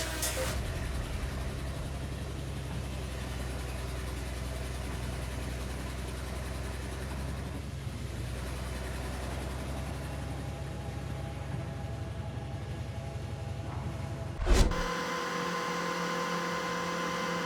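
A heavy machine's engine running steadily. About fourteen seconds in there is a sudden loud jolt, after which a different steady machine sound with a higher whine takes over.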